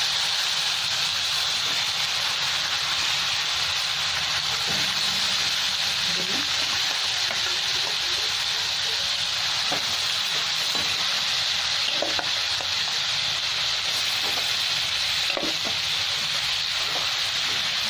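Hot oil in a kadai sizzling steadily as yogurt-and-spice-marinated chicken pieces are added and fry, with a steady hiss.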